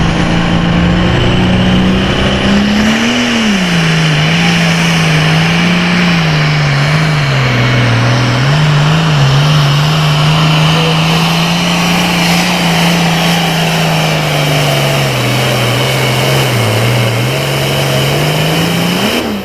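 Super farm pulling tractor's diesel engine running hard under load down the track. Its note holds fairly steady, with a brief rise about three seconds in and small dips in pitch after that.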